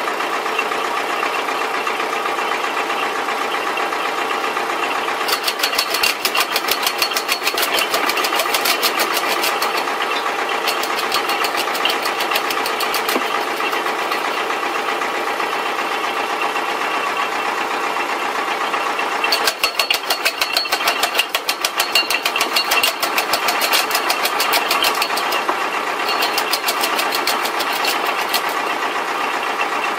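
Tractor engine running steadily, driving a homemade PTO-powered wood chipper. Twice, for several seconds each, the chipper chews through green conifer branches in a rapid run of sharp chopping clicks.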